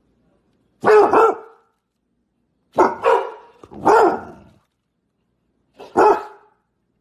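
Dog barking loudly, four separate barks spread a second or two apart, with silence between them.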